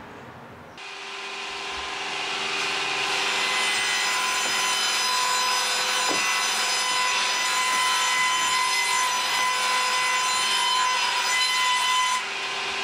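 Power saw cutting through timber beams: a steady, high-pitched whine that keeps an even pitch. It starts abruptly about a second in, builds in loudness, then drops a step near the end.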